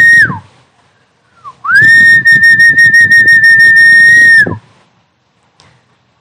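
Recorded snakehead fish-calling sound played back: a loud, steady high whistle with a low rapid flutter beneath it. The first whistle drops off in pitch just after the start, a short falling chirp follows, then a long whistle of about three seconds that also falls in pitch as it stops.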